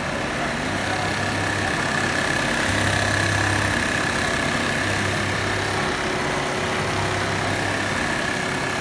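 CHUANLIU CL-326J programmable pattern sewing machine running at speed, its needle stitching a dense back-and-forth pattern into jeans. The sound is a steady mechanical chatter with a thin steady whine above it and a low hum that switches on and off about every two seconds.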